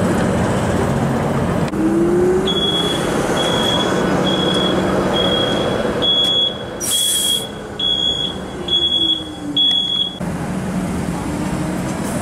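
Canadian Light Rail Vehicle (CLRV) streetcars passing along the street: a steady rumble with a whine that glides up and then down in pitch. A high electronic beep repeats about once a second for roughly eight seconds, and a short hiss comes about midway.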